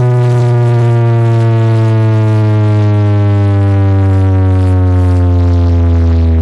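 A loud, sustained deep bass tone with many overtones, its pitch gliding slowly downward: a bass sweep played through a big car sound system.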